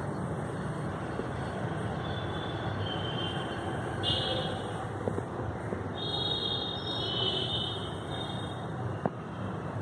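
Steady background rumble and hiss. Faint high-pitched tones come in twice for a second or two, and there are a couple of small clicks.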